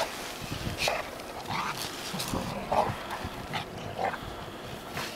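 Labrador retriever making a string of short, irregular dog noises, about two a second, while out in deep snow.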